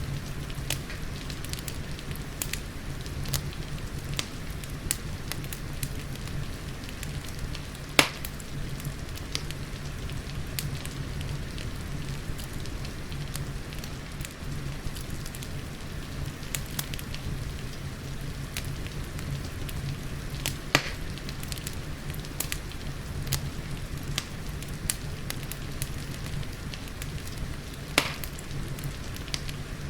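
Wood fire crackling with many small sharp pops and three louder ones, over a steady rumble of rain.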